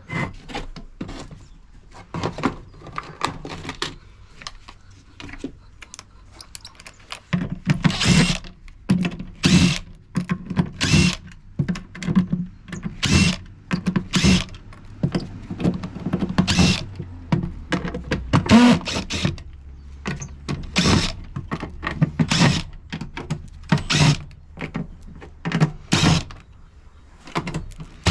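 Power drill running in short bursts while screws are taken out of a cast-aluminium washing-machine part, with repeated sharp clunks and clatters of metal pieces being handled.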